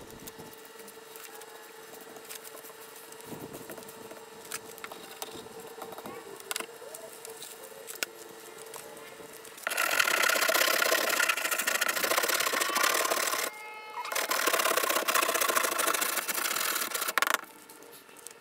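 Loud, rough scraping on the boat's wooden deck as the old coating is worked off. It runs in two stretches of a few seconds with a short break, starting about halfway through and stopping abruptly near the end.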